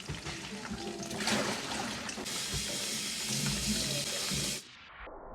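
Chicken pakoras deep-frying in hot oil, a steady sizzle that swells sharply about two seconds in and cuts off abruptly near the end.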